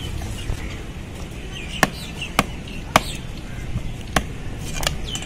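Large knife chopping stingray flesh on a wooden log block: five sharp chops, the first three about half a second apart, the last two more spaced out.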